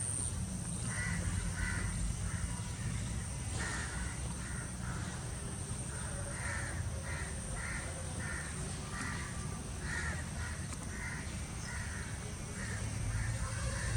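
A bird calling in a long run of short repeated calls, about two a second, with a brief pause about three seconds in.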